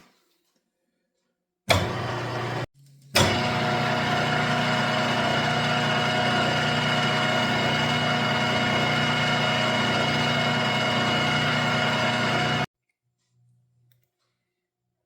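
Milling machine spindle motor switched on, stopping after about a second, then starting again and running at a steady pitch with a constant whine for about nine seconds before being switched off.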